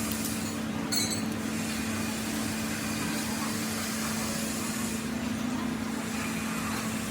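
Steady mechanical hum with a constant low tone, broken only by a short click about a second in.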